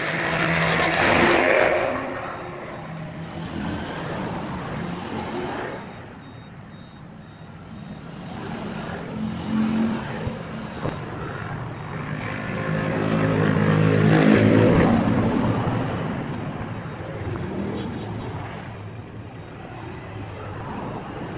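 Motor vehicles passing by, their engine sound swelling and fading. The loudest passes are about a second in and around fourteen seconds.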